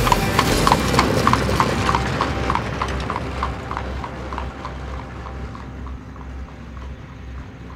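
A horse's hooves clip-clopping at a walk on a paved lane as it pulls a carriage, about three or four strikes a second, fading steadily as the horse and carriage move away.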